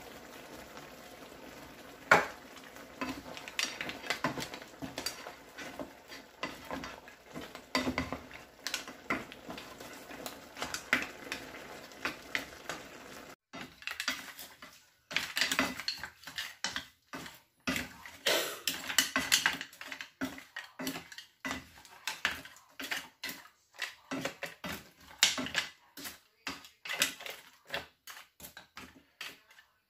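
Wooden spoon stirring mussels and shrimp in a frying pan, irregular knocks and clacks of the spoon against the pan and the mussel shells, with one sharp knock about two seconds in. A low hiss of the simmering sauce lies under the first half; in the second half the clacking comes faster and louder.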